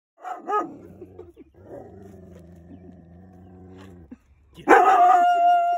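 A dog vocalizing: a couple of short yelps, then a low, steady grumble of about two and a half seconds, then a loud, drawn-out howling bark near the end.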